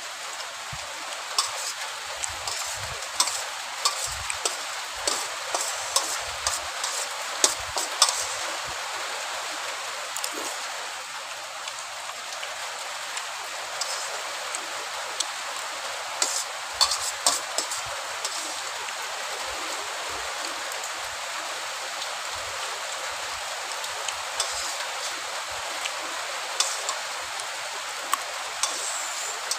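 A steel spoon clinking and scraping against a steel plate in short clusters of sharp clicks, over a steady hiss of rain.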